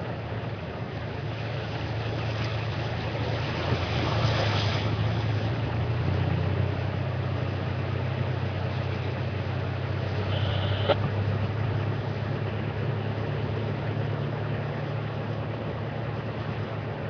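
Vehicle engine running steadily as it drives along a rough dirt track, with a low hum under road and tyre noise. A single sharp click comes about eleven seconds in.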